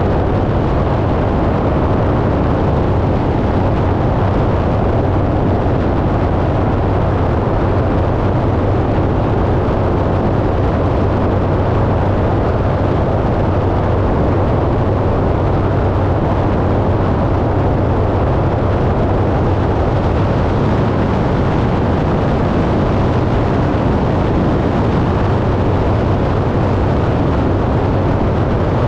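Small aircraft's engine running steadily in flight: a constant low drone with a dense rush of air noise over it.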